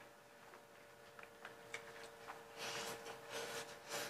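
Faint eating sounds: chewing and lip smacks with scattered small clicks, a few short smacky bursts in the second half, over a steady faint hum.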